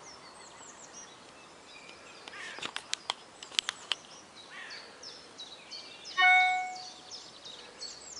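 Birds chirping repeatedly outdoors, with a quick run of sharp clicks a few seconds in. About six seconds in, a cordless phone handset gives out a loud, short electronic tone that fades away.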